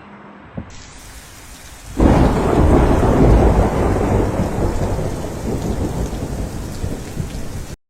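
Steady rain, then about two seconds in a loud thunderclap breaks into a long rumble over the rain. The rumble eases slowly, then cuts off suddenly near the end.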